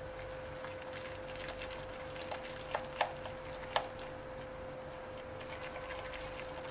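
Whisk beating thick gram-flour batter in a glass bowl: soft wet stirring with many small clicks of the whisk against the glass, three louder taps near the middle, over a steady faint hum.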